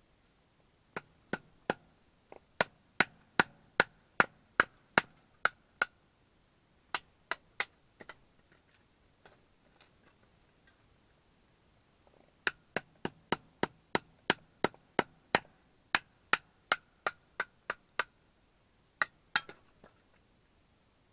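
Sharp metal-on-metal strikes in quick runs of about two to three a second, each leaving a short ringing tone, like a hammer driving a steel tent peg into frozen ground. Two long runs of a dozen or more blows, with a few shorter bursts between them.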